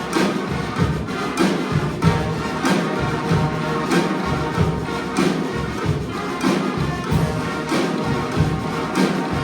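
Community street band playing live: horns holding sustained notes over drums that strike a steady beat about every two-thirds of a second.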